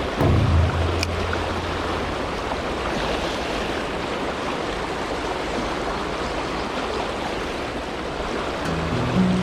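Steady rush of flowing river water. Low steady tones sound briefly near the start, and background music begins near the end.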